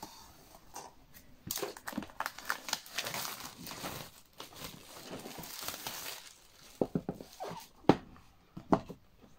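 Plastic shrink wrap crinkling and tearing as it is slit with a box cutter and peeled off a cardboard box, followed near the end by a few light knocks as the box is handled.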